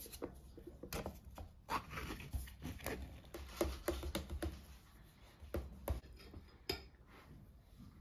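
Foil lid being peeled off a plastic yoghurt cup: a run of crinkles and small clicks, with light knocks as the cup is handled on the table; the handling dies away about seven seconds in.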